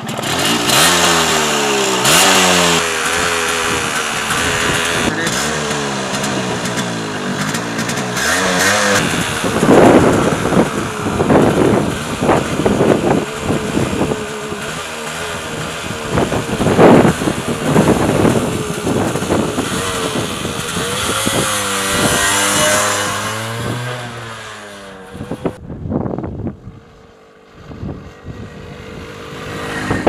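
Yamaha RX100's two-stroke single-cylinder engine running just after a kick start, revved again and again so that its pitch rises and falls. Near the end the engine sound drops away and turns fainter.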